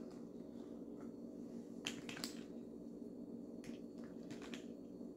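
A few light, sharp clicks over a steady low hum: two about two seconds in and two more between three and a half and four and a half seconds in.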